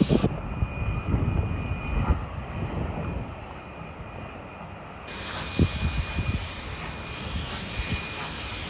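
Steam train pulling away: a low rumble from the locomotive and carriages on the track, with a few scattered knocks, easing in the middle and picking up again about five seconds in.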